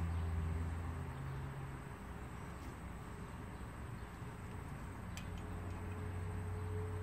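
Low steady hum in the background with light handling sounds: a few faint clicks about five seconds in as a digital caliper's jaws are set against the water block's hose barb.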